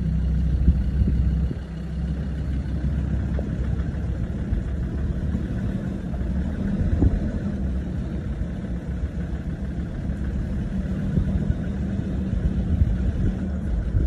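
An off-road SUV's engine running steadily at low speed on a rough gravel track, heard from inside the cabin, with scattered knocks and crunches as the vehicle rolls over stones.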